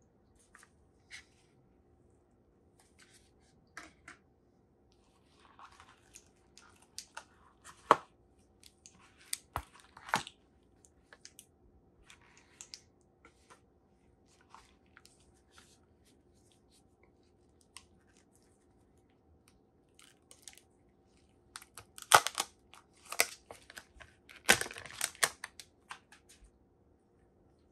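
Gloved hands handling a phone's cardboard box insert and the phone, with scattered light taps, clicks and paper rustles. Near the end comes a few seconds of loud crackling rustle as the clear plastic protective film is peeled off the back of a Samsung Galaxy A33 5G.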